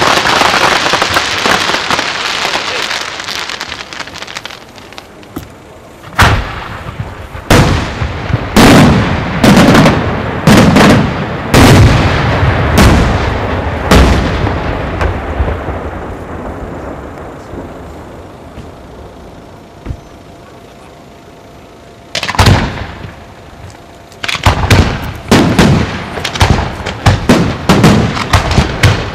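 Bruscella Fireworks aerial shells bursting in a night display. A dense crackling of falling stars fades away, then a string of sharp bangs starts about six seconds in. After a lull and a single bang, a rapid volley of bangs runs near the end.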